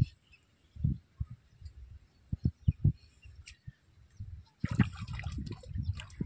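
Water splashing and sloshing, with a few separate dull knocks in the first half; the splashing turns busier and louder about three-quarters of the way in.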